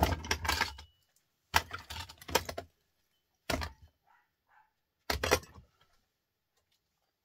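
Small salvaged transformers and motor parts clattering onto a heap of others on a workbench as they are tossed down: four short bursts of metallic clinks and knocks.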